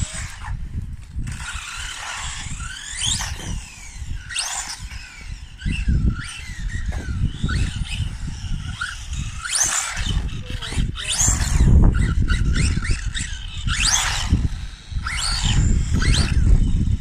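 Small 1/18-scale electric RC cars running, their motors whining in repeated quick rising and falling sweeps as the throttle is blipped, over a low rumble.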